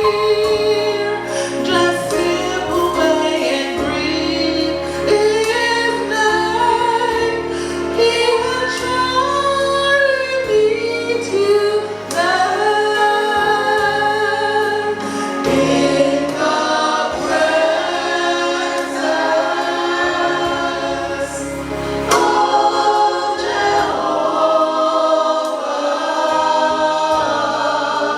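Choir singing a hymn over low sustained accompaniment notes that change every second or two.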